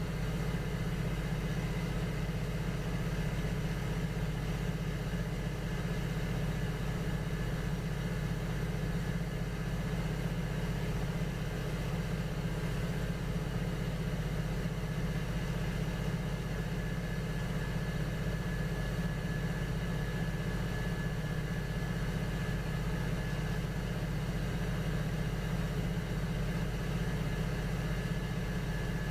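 Electric potter's wheel motor running steadily, a constant low hum with a faint high whine over it.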